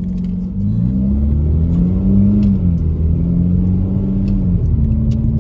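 Car engine accelerating, heard from inside the car, its pitch climbing and dropping back a few times over a low rumble; it gets louder about half a second in.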